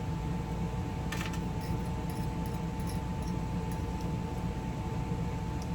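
Steady low hum of an RV air conditioner running, with a faint steady whine, and a few faint clicks about a second in.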